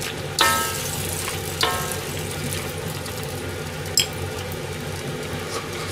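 A starch-thickened vegetable and mushroom broth is simmering and sizzling in a steel wok while a long metal ladle stirs it. The ladle clangs against the wok about half a second in and again near two seconds, and there is a sharp clink about four seconds in.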